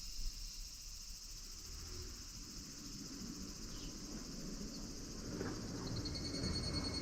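Higurashi (evening cicada) calling, a high shrill chorus that fades away over the first few seconds. Low rumbling noise builds in the second half.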